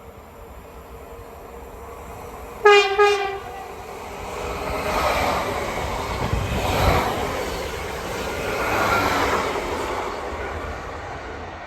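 Train horn sounding two short blasts about two and a half seconds in, followed by the train passing with a swelling rush of wheel and rail noise that rises and falls.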